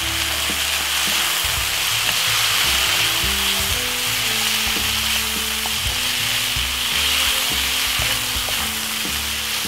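Diced chicken breast, tomato and onion sizzling in oil in a frying pan, a steady hiss, while a wooden spatula stirs them with light scrapes and taps against the pan.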